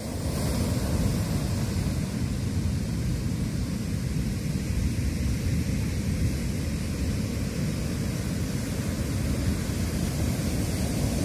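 Heavy surf breaking steadily on a beach in high waves, heard as a continuous deep rush, mixed with wind rumbling on the microphone.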